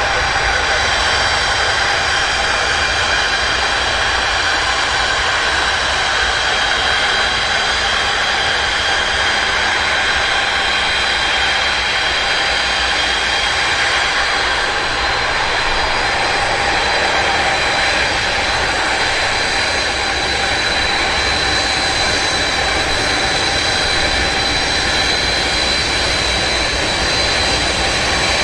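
Jet engines of the Antonov An-225 Mriya, six Progress D-18T turbofans, running steadily at takeoff: a loud, even rush of noise with several high whining tones over it.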